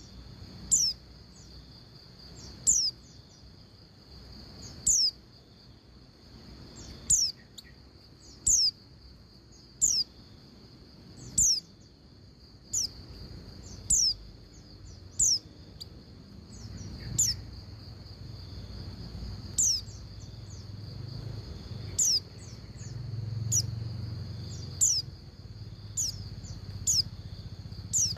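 Female white-eye (pleci) calling: short, high, downward-sliding call notes repeated about every one to two seconds, the kind of female call played to set male white-eyes singing. A steady high whine runs underneath, and a low rumble rises in the second half.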